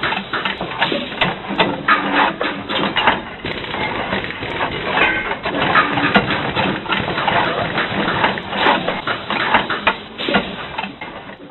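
Railway workshop sound effects from a Hornby TTS sound decoder: the slow workshop ambience of irregular metal clanks, knocks and scraping, with a boiler rake being worked and a brief air spanner joining about halfway. The sound is thin, with no top end, and fades away near the end.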